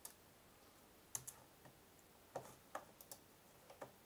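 Faint, scattered clicks of a computer mouse and keyboard, about eight short clicks in four seconds.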